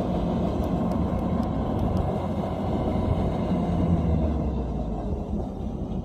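Kubota DC-105X combine harvester running steadily, a low engine hum with machinery rumble that eases slightly near the end.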